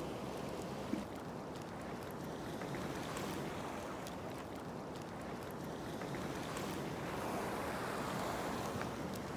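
Steady wash of sea water with wind, heard from a small boat on the open ocean, with one short knock about a second in.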